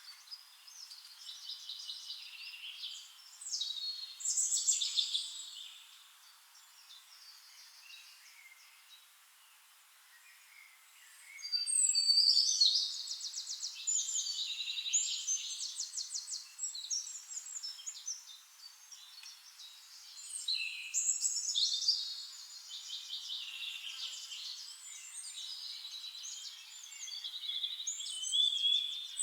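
Several songbirds singing in a forest: overlapping chirps and fast trilled songs, with a lull of a few seconds before louder trilled phrases come in less than halfway through.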